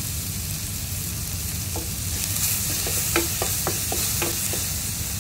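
Chopped onion, tomato and capsicum sizzling in oil in a clay pot, stirred with a wooden spatula that taps and scrapes against the pot, a quick run of taps in the middle. A low hum runs underneath.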